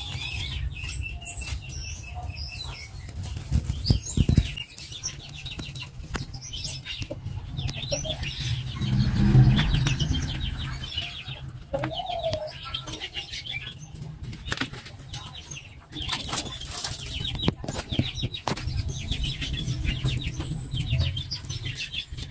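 Bar of soap rubbed quickly back and forth over a wet engraved trophy plate by hand, a fast, fluttering run of short scrubbing strokes.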